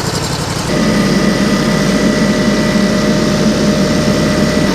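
An engine running steadily that gets louder and picks up a steady whine about a second in.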